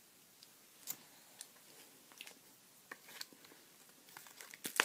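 A person chewing a bite of chocolate-egg candy with crunchy bits in the cream, soft irregular mouth clicks. Near the end comes one sharper, louder click.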